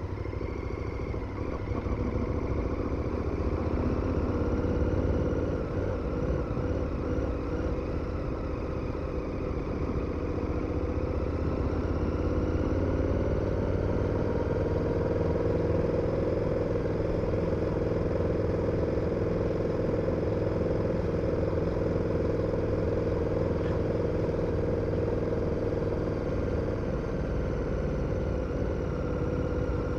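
KTM 1290 Super Adventure's V-twin engine running under way, its note rising gradually over the first half, then holding steady before easing off near the end.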